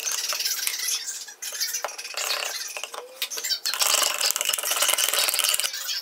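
A stick stirring and scraping casting resin in a plastic cup, making a rapid scratchy clicking. It is loudest for a second and a half in the second half, with a few light knocks against the cup.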